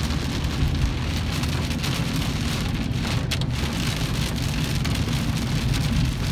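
Heavy rain drumming on a car's roof and windscreen, heard from inside the moving car over a steady low rumble of road and engine noise.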